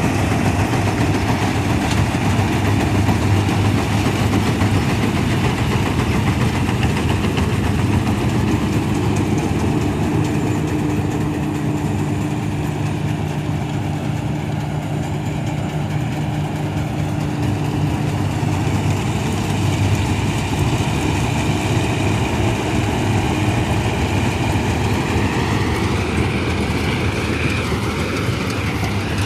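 1965 Ködel & Böhm Köla Combi combine harvester running steadily at work, a loud continuous engine and machinery drone. A higher whine wavers in pitch near the end.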